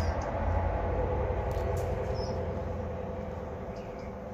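Low rumble of a passing vehicle, slowly fading. A few faint, brief bird chirps sound over it.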